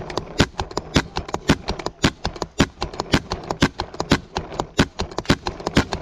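Paintball markers firing: a dense, uneven stream of sharp pops, about six to eight a second, from several guns shooting at once.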